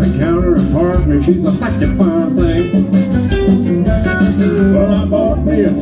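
Live country band playing an instrumental break, with an electric guitar lead over upright bass and drums.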